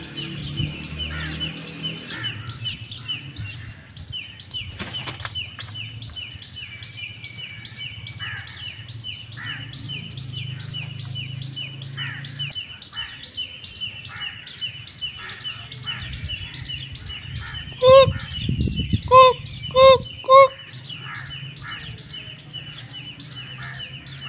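Small birds chirping without a break, several short high chirps a second. About three quarters of the way through, a peafowl gives four loud, short calls in quick succession.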